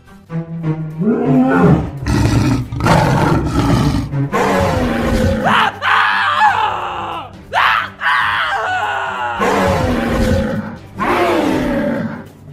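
Dinosaur roar sound effects: several long roars one after another, each lasting a second or two, with the pitch bending up and down.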